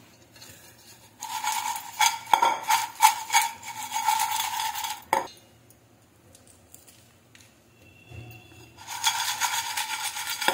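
Crisp fried raw-banana chips rattling and scraping against a stainless steel bowl as they are tossed, the bowl ringing with them. It comes in two spells, about four seconds and then about two seconds near the end, with a quiet gap between.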